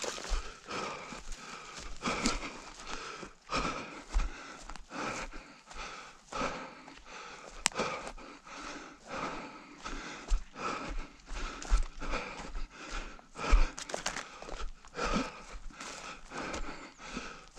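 A runner's footfalls on rough ground, a steady rhythm of a little under two strides a second, with hard breathing.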